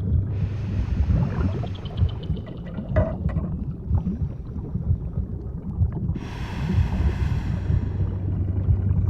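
Underwater ocean ambience: a low, churning rumble of moving water with a hiss above it. The hiss grows brighter about six seconds in.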